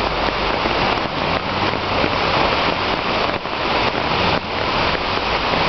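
A swollen stream in flood rushing steadily past, a loud, even noise of moving water mixed with falling rain.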